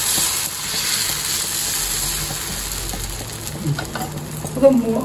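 Dosa batter sizzling on a hot griddle as it is spread out with a ladle. The hiss slowly weakens over the few seconds.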